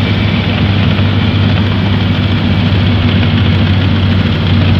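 Gyrocopter's engine and rotor heard from the cockpit on the approach to the runway: a steady low drone under a broad rush of wind noise, during practice for an emergency landing.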